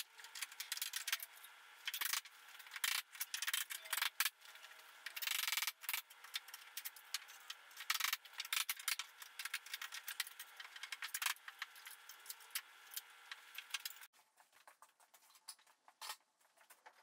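Dense run of small clicks, rattles and knocks from hand tools and wood as a wooden shipping crate is dismantled. It thins out abruptly to a few faint ticks near the end.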